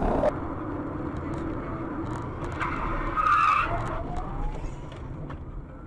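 Car road noise heard through a dashcam, with a brief screech of skidding tyres about three seconds in.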